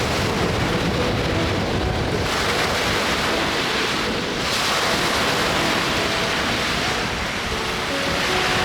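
Strong wind rushing and buffeting the microphone, with waves washing on the lakeshore; the gusts swell a few seconds in and again near the end.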